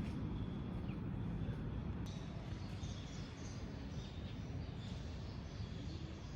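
Low steady ambient rumble with faint, short, high bird chirps from about two seconds in.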